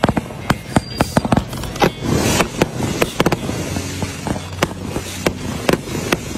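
Repeating skyshot fireworks firing in quick succession: a string of sharp bangs and pops at irregular spacing, sometimes several a second, with a hissing crackle about two seconds in.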